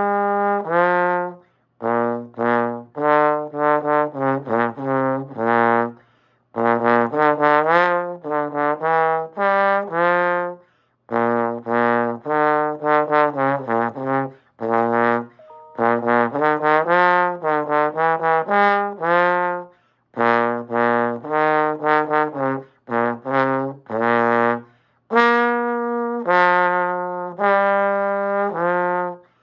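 Solo trombone playing an unaccompanied exercise: phrases of distinct, separately articulated notes moving up and down in pitch, broken by short pauses for breath every few seconds.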